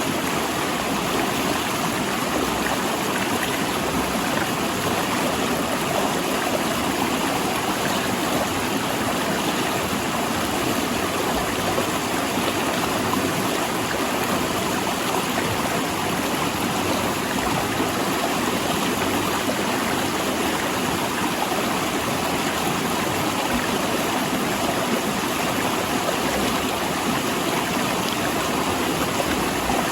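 Rushing river water flowing over and between large rocks, a steady, even rush of whitewater.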